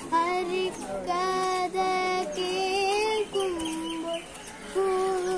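Young girl singing solo, holding long, slightly wavering notes in short phrases with brief breaths between them.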